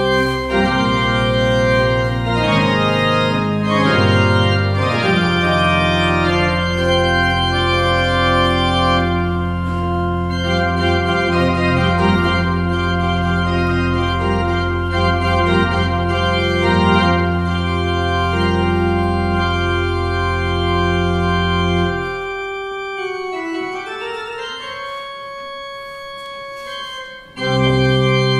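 Pipe organ playing a loud, full passage of held chords over long, deep pedal notes. About three-quarters of the way through the pedal drops out and a quieter passage on the manuals alone follows, with a descending line, before the full sound returns near the end.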